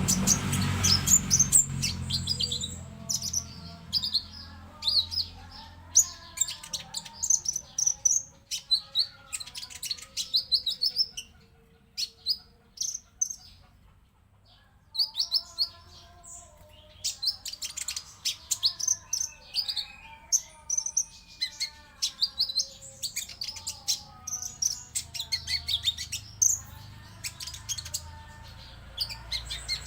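Konin (tailorbird) song from a bird-training lure recording: volleys of sharp, high, rapid chirps, with a softer, lower warbling song running beneath. The singing thins out to a near pause around the middle, then resumes.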